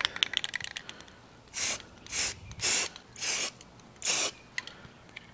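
Rust-Oleum camouflage aerosol spray paint can giving five short bursts of spray, each about a third of a second long, after a few faint clicks in the first second.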